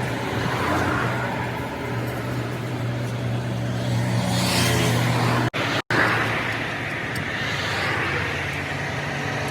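A vehicle engine running steadily, with passing traffic swelling and fading. The sound drops out twice, very briefly, a little over halfway through.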